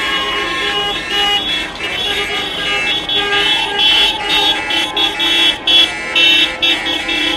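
Car horns honking over and over in short repeated blasts, the celebratory honking of a decorated wedding vehicle.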